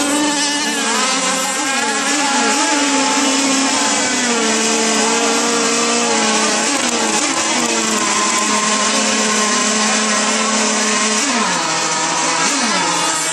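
Several radio-controlled model racing boats running flat out, their small high-revving motors making an overlapping high buzz whose pitches rise and fall as the boats race. Near the end one pitch drops sharply.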